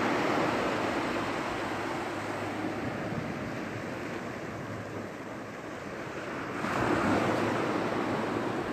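Small waves of a calm sea washing onto a sandy beach: a steady surf hiss that slowly fades, then swells again as another wave washes in about two-thirds through.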